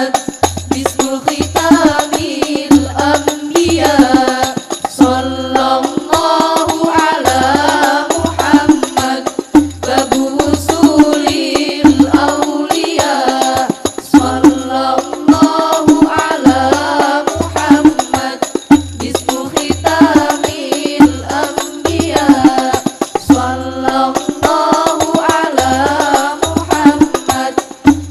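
Al-Banjari ensemble playing: hand-struck frame drums in a dense, fast interlocking rhythm over a regularly beating deep bass drum, with voices singing a devotional chant.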